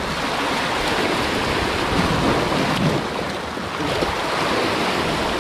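Steady surf washing against the rocks, with wind buffeting the microphone.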